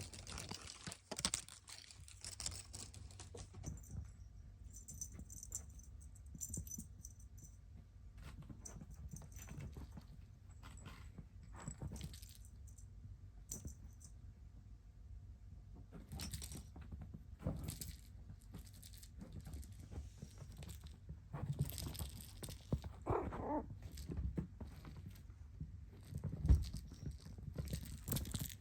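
Kitten purring loudly, a steady low rumble, with scattered light clicks and rustles of movement on top.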